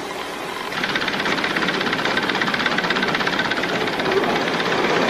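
Industrial sewing machines running with a fast, even mechanical clatter, which grows louder about a second in.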